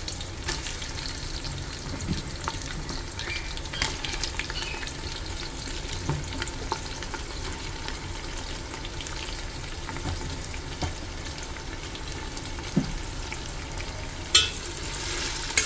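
Onions frying in hot ghee in a pressure cooker: a steady sizzle with occasional light clicks. The crackling grows louder about a second before the end.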